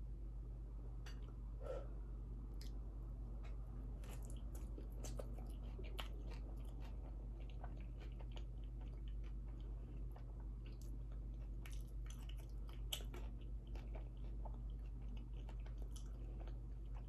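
Close-miked chewing of a mouthful of minced beef and onion pie in gravy with pastry: soft wet chewing with scattered small clicks and crunches, a little louder around three-quarters of the way through.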